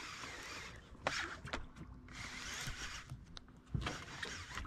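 Baitcasting reel being cranked against the pull of a hooked fish: a steady gear whir, broken by a few short knocks.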